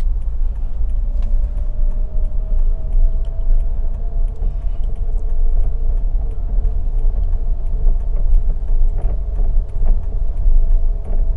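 Interior rumble of a 2014 Daihatsu Xenia R with manual transmission driving slowly: engine and road noise heard from inside the cabin, with a faint steady tone above it.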